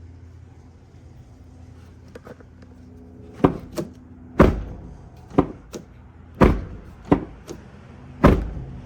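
Chevy pickup door and its latch being worked to test a newly fitted outside door handle: a run of clunks and clicks starting about three and a half seconds in, the four heaviest roughly two seconds apart, over a steady low hum.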